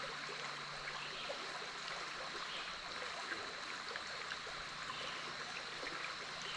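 Big Otter River water flowing and babbling steadily, with a faint steady high-pitched tone above it.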